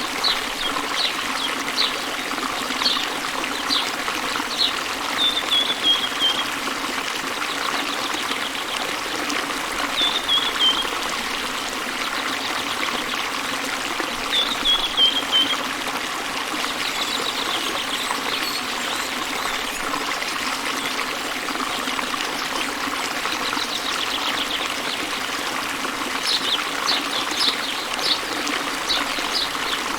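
Waterfall and river water running steadily, with small birds chirping over it: bursts of quick high chirps near the start and end, and a short falling trill three times in between.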